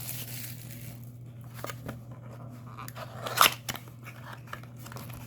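Foil trading-card booster packs being torn open and handled: scattered crinkles and clicks, the loudest about three and a half seconds in, over a steady low hum.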